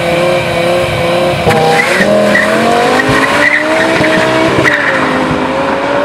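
BMW M5 E60's 5.0-litre V10 running loud at steady revs, then from about a second and a half in rising in pitch in several climbs as it accelerates.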